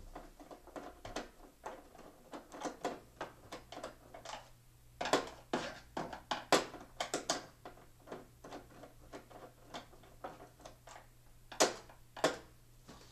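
Irregular clicks and taps of a screwdriver and hands on the plastic back cover of an LCD TV as its screws are worked out, with a few louder knocks.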